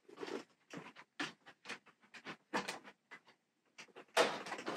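Handling noise from a dress form wearing a coat being lifted and carried: short, irregular rustles and shuffles, with a longer, louder rustle near the end.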